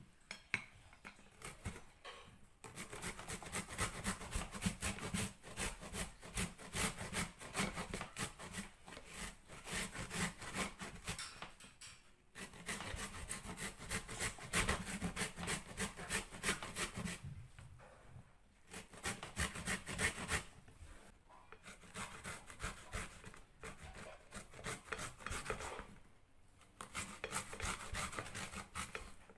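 A raw turnip grated by hand on a grater: rapid, continuous rasping strokes, stopping briefly a few times.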